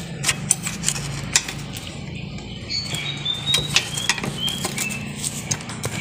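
Steel screwdriver clicking and scraping against the drive chain and swingarm of a Royal Enfield Classic 350 while prising out the broken rubber chain pad: a run of light, irregular metallic clicks over a steady low hum.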